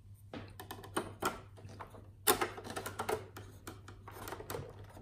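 Clicks and scrapes of a 512 KB memory expansion card being handled and pushed into the trapdoor expansion slot under an Amiga 500, with the sharpest click about two seconds in.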